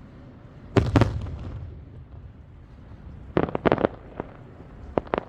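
Fireworks shells bursting. There is a loud cluster of booms about a second in that trails off, then a quick run of sharp cracks a little past three seconds, and two more cracks near the end.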